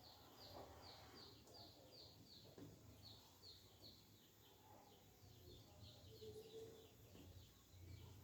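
Faint bird song: a long run of short downward chirps, about three a second, over a low steady rumble of background noise.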